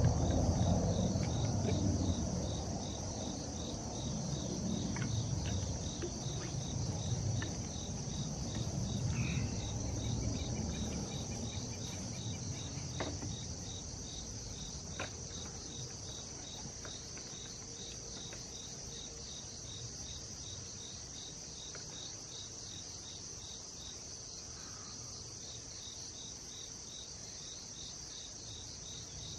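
Crickets chirping steadily in a fast, even pulse. A low rumble runs under the first half and dies away, with a few sharp pops scattered through.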